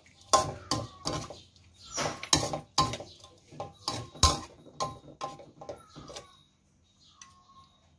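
Metal ladle clanking and scraping against a wok as food is stirred and tossed: a quick, irregular run of ringing metal strikes that stops about six seconds in.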